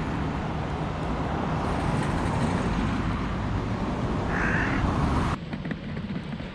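Road traffic noise from passing cars, with a crow cawing once about four and a half seconds in. The sound drops suddenly to a quieter background about five seconds in.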